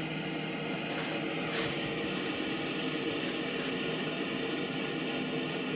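Heavy farm harvest machinery running steadily in the field: an even engine and fan hum with a constant hiss.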